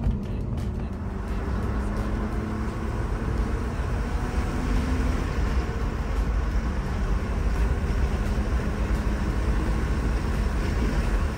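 In-cabin sound of a 1993 BMW E36 325is at highway speed: its 2.5-litre straight-six runs steadily at about 4,000 rpm under road and wind noise.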